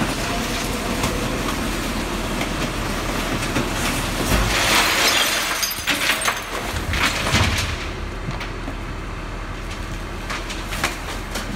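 Garbage truck at work collecting general waste: machinery running steadily, with a loud crash of rubbish and breaking glass about halfway through and a few heavy knocks just after.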